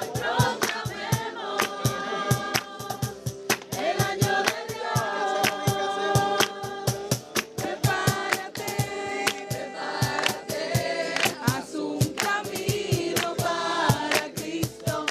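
Gospel-style music with a group of voices singing over a steady, quick percussion beat.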